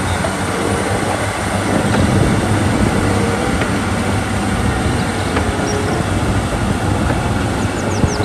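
Komatsu D275AX crawler bulldozer working, its diesel engine running steadily under load as the blade pushes a heap of earth.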